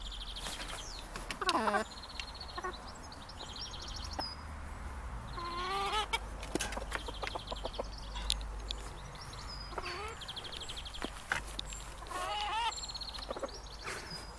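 Several chickens clucking and calling, with calls that slide up and down in pitch and quick high trills repeated throughout, and a few short sharp clicks.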